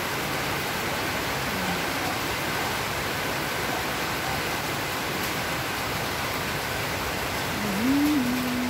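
Steady rain falling, an even hiss with no breaks. Near the end a short, held vocal sound from a person rises slightly and holds for about a second.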